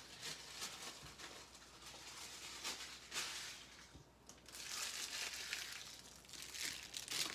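Rustling and crinkling handling noise that comes and goes in several swells, with no speech.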